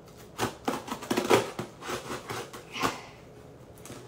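Cardboard shipping box being opened by hand: a run of short scraping and rustling noises, busiest in the first three seconds.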